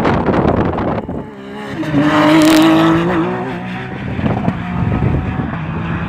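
Rally car engine at high revs, accelerating hard along the stage: a noisy rush at first, then a strong engine note that climbs to its loudest about two to three seconds in, with a short sharp pop near the peak, and fades as the car pulls away.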